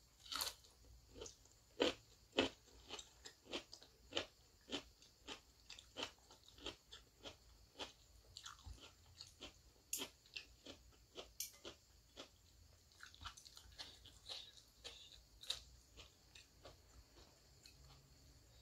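Person chewing crunchy green vegetables with noodles close to the microphone, including fresh green chili and half-cooked broccoli. Sharp crunches come about two or three a second, a few of them louder.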